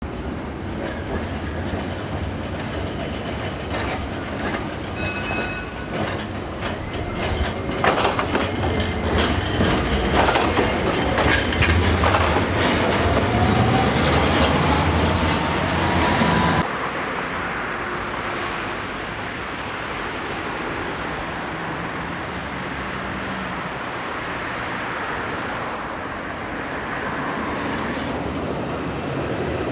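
Articulated electric trams running on street track: one passes close, its wheels clicking over rail joints while a whine rises steadily in pitch. It cuts off abruptly about halfway through, giving way to the quieter, steady rumble of another tram approaching.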